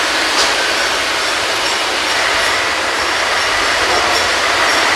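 Steady mechanical din of a covered container-truck yard with trucks running, an even noise carrying a faint high whine.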